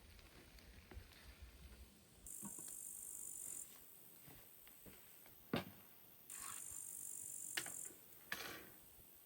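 An insect trilling twice, a steady high-pitched buzz of about one and a half seconds each time, with a few light clicks and a brief rustle in between.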